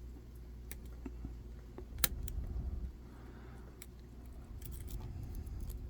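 Pin-tumbler padlock being picked: a handful of small, sharp metallic clicks and ticks from the pick and tension tool working the pins, the loudest about two seconds in and a quick cluster near the end. The lock is mostly serrated pins.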